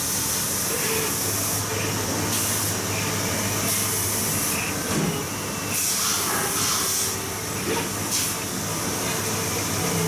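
Flatbed cutting plotter running: a steady machine hiss and hum, with a higher whir that starts and stops in short spells as the cutting head travels and cuts the sheet.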